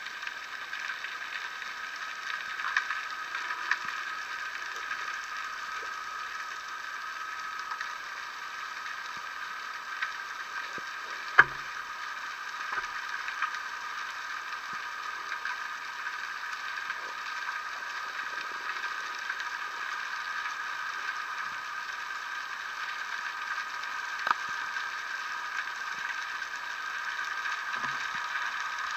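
Underwater ambience heard through a camera housing: a steady hiss with scattered sharp clicks and crackles, the loudest click about eleven seconds in and another near the end.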